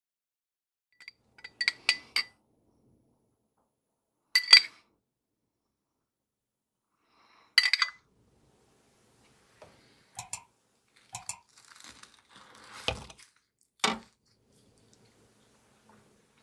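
Glass and metal kitchenware clinking: a quick run of ringing clinks, then single clinks a few seconds apart, followed by lighter taps, a brief scrape, a dull knock and one more clink near the end.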